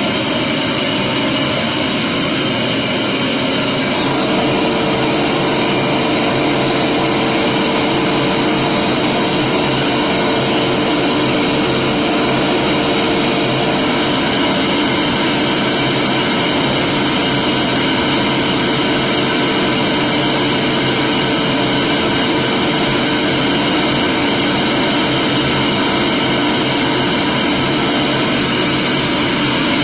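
Vacuum cleaner running steadily with a loud, even whooshing whine; a low hum joins in about four seconds in.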